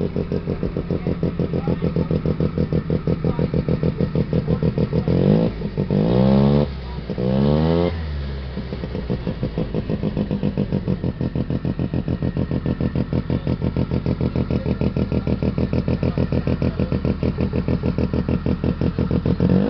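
Vintage snowmobile engine running at a fast, pulsing idle, revved up and let back down twice about five to seven seconds in, and revved once more at the very end.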